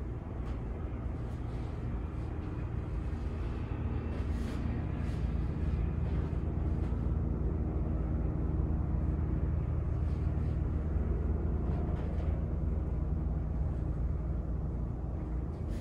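Helicopter flying past outside, a low steady drone that swells louder through the middle and eases slightly toward the end.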